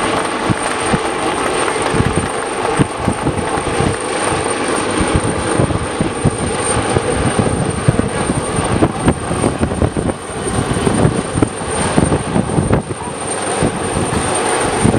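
Coastguard AgustaWestland AW139 twin-turbine rescue helicopter hovering close by, its rotor and engines running with a dense, steady noise and an uneven low rumble that surges and fades.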